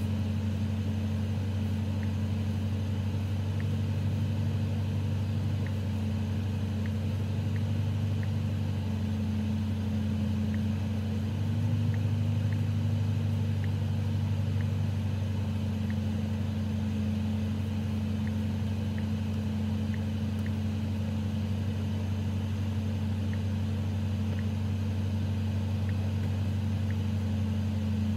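BMW M5 Competition's 4.4-litre twin-turbo V8 running steadily at low revs with no revving, a deep even hum. It swells slightly for a few seconds near the middle.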